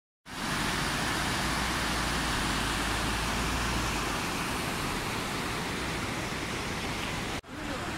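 Steady rushing of a shallow river running over stones and low weir steps. The rush breaks off for an instant near the end, then picks up again.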